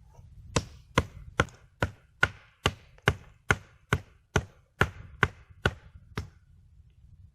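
A steady run of about fourteen sharp chopping strikes, a little over two a second, stopping about six seconds in.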